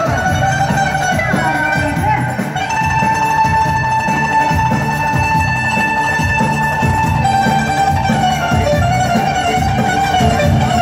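Live band music with plucked strings and a steady beat, mostly instrumental. A long held melody note runs through the middle and steps down a little about two-thirds of the way in.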